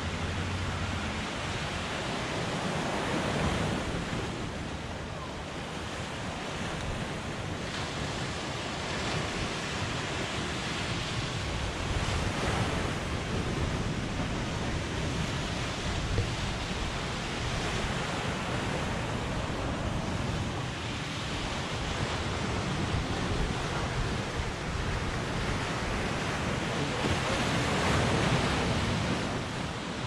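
Ocean surf breaking and washing on a rocky beach, swelling and easing as each wave comes in every several seconds, with wind rumbling on the microphone.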